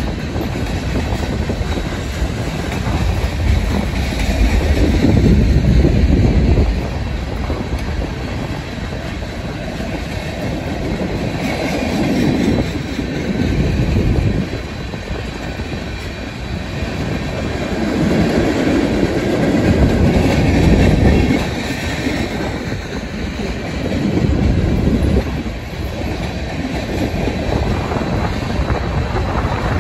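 Freight cars of a BNSF manifest train rolling past close by: tank cars and covered hoppers rumbling and clattering on the rails, swelling louder and easing off again every several seconds as wheel sets go by.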